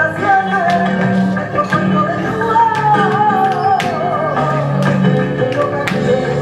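Flamenco song: a wavering, ornamented sung line over guitar, with sharp percussive clicks landing roughly twice a second.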